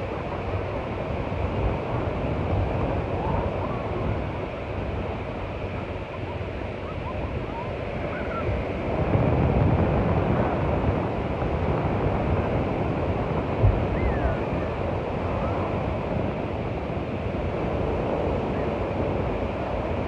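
Small ocean waves breaking and washing up a sandy beach, a steady surf wash that swells louder about nine seconds in. Beach-crowd voices sit faintly underneath, and one short bump, likely wind or a knock on the microphone, comes about two-thirds of the way through.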